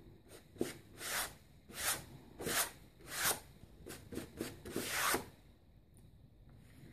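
Fan brush with acrylic paint scratching across cardstock in about ten quick dry-brush strokes, each a short rasp of bristles on paper; the strokes stop about five seconds in.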